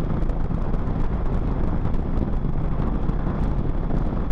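Wind rushing over a helmet-mounted microphone while cruising at a steady speed on a Triumph Speedmaster 865cc parallel-twin motorcycle, with the bike's low engine and road rumble underneath.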